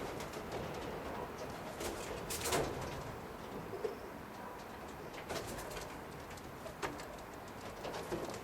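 Roller pigeons cooing in their kit box, with a few short sharp sounds among them, the loudest about two and a half seconds in.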